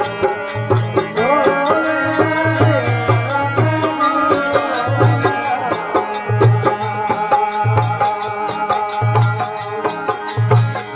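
Instrumental music of a Rajasthani folk bhajan: a gliding melodic lead over a steady hand-drum rhythm with a repeating deep bass pulse.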